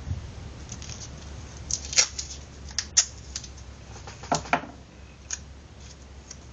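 Hands handling small paper-wrapped pieces and foil on a sheet of paper: a series of sharp clicks and crinkles, the loudest two about two and three seconds in.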